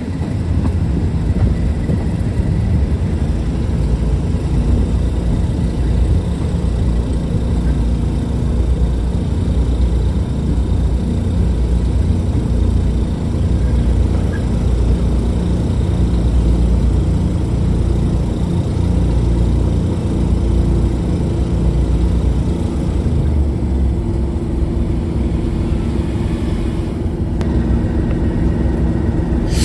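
The English Electric V12 diesel engine of Class 37 locomotive 37075 running steadily, heard from the open window of the carriage just behind it. Its low note changes slightly about three-quarters of the way through.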